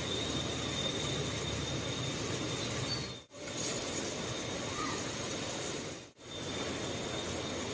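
Outdoor forest ambience: a steady rush of flowing river water with a continuous high-pitched insect drone over it. The sound drops out briefly twice, about three and six seconds in.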